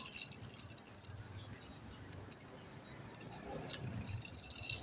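Small die-cast toy truck's wheels rolling and rattling over rough concrete as it is pushed by hand, with a quieter stretch in the middle, a sharp click about three-quarters of the way through, and more gritty rolling rattle near the end.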